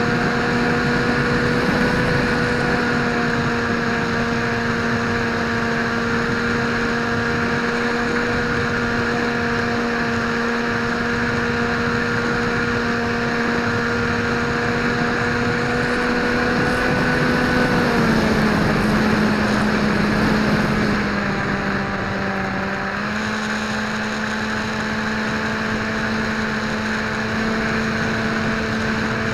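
Dynam Hawk Sky RC plane's electric motor and propeller running in flight, a steady whine over wind rush. About eighteen seconds in the pitch slides down, and about five seconds later it steps back up.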